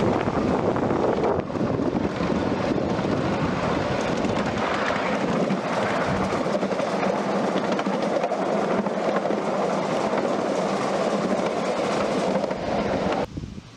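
A 7.5-inch gauge miniature railroad train running on the track, a loud steady running noise with a low steady tone through its second half. It starts suddenly and cuts off abruptly near the end.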